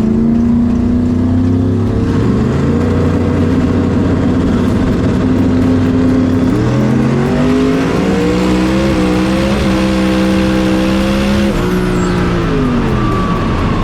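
Drag car's engine running at a held, steady rpm. It climbs to higher revs about seven seconds in, holds there, then drops off near the end.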